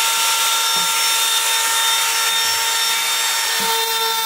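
Trim router with a 1/8-inch roundover bit running with a steady high whine, cutting a roundover along a plywood edge.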